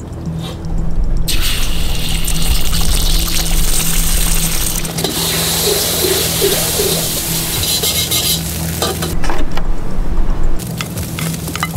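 Background music over a hot wok sizzling on a gas burner. The hiss swells to its loudest about halfway through, as food goes into the oiled wok.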